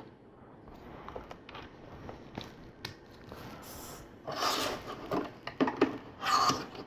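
LEGO plastic pieces being handled, with small sharp clicks, then several short scraping, rubbing rustles in the second half.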